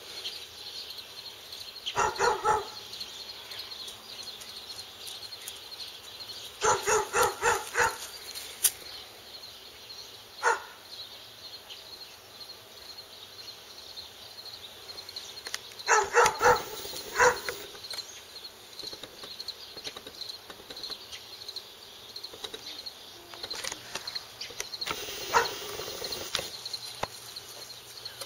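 Pet wolf giving short pitched calls in quick clusters, the loudest runs of four or five calls about 7 and 16 seconds in, with single calls between.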